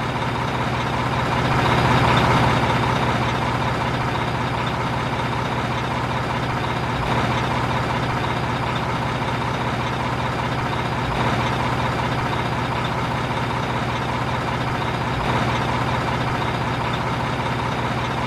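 Truck engine sound effect running steadily, swelling a little about two seconds in.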